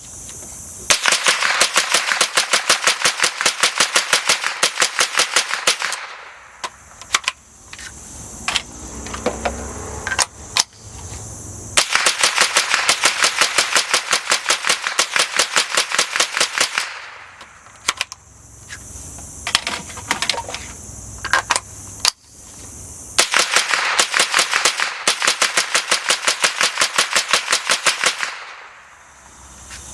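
Suppressed Smith & Wesson M&P 15-22 .22 LR semi-automatic rifle firing three fast strings of shots, each about five seconds long, with a few scattered single sharp clicks between the strings. The rifle has been neither cleaned nor re-lubricated after some 600 rounds of cheap ammunition and is still cycling.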